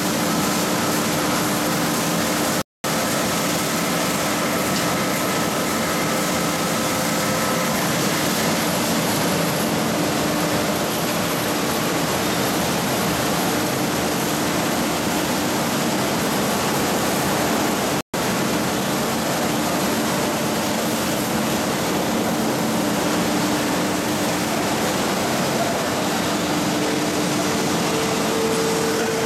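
Steady din of industrial machinery in a steel coil-processing plant, a constant rushing noise with a few faint steady hums in it. The sound drops out for an instant twice, about three seconds in and again near eighteen seconds.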